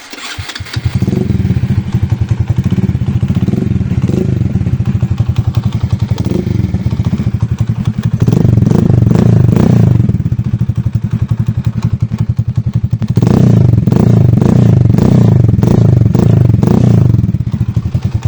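Alpha 110 moped's 107 cc single-cylinder four-stroke engine with a straight-through muffler starting about a second in and idling, then revved: one longer rev around the middle and a run of quick throttle blips near the end.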